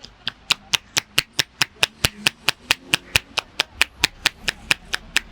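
Rhythmic percussive head massage: a barber's hands strike the head in quick, even, sharp slaps, about five a second.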